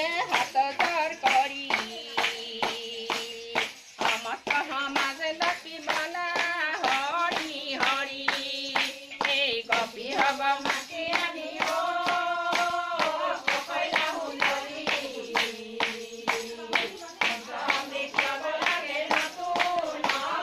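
A group of women singing an Assamese devotional naam together, keeping time with hand claps about twice a second.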